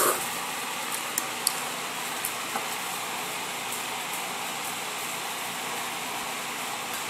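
A noodle slurp trailing off right at the start, then a few small sharp mouth clicks from chewing about a second in, over a steady background hiss.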